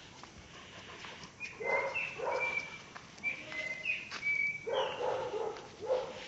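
A dog barking about four times in short separate barks, with small birds chirping in between.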